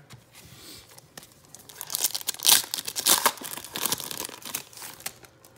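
Foil wrapper of a Donruss Optic basketball card pack being torn open and crinkled by hand. The crackling is loudest from about two to four seconds in.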